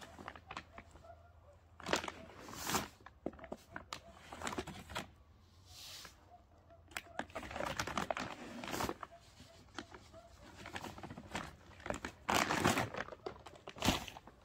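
Plastic bag crinkling and rustling as it is handled, in irregular bursts, with louder ones about 2, 8 and 12 seconds in.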